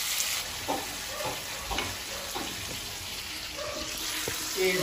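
Marinated chicken pieces sizzling in oil in a pan over a low flame, with a spatula stirring them; an even, steady hiss.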